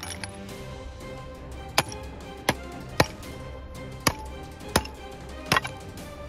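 A bladed hand tool chopping into a small grey container, about seven sharp strikes at uneven intervals, over background music.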